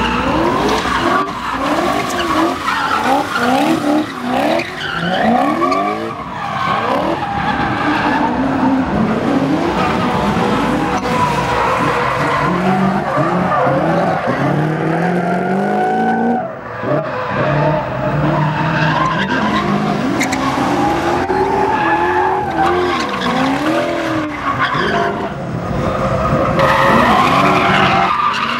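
BMW 5 Series (E39) drift cars sliding sideways, engines revving up and down again and again while the rear tyres spin and squeal across the tarmac.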